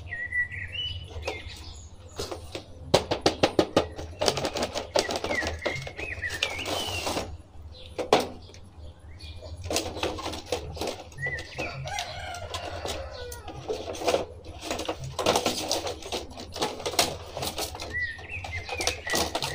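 Clear plastic blister packaging crackling and clicking as action figures are handled and pulled out of their moulded tray. Birds call now and then in the background.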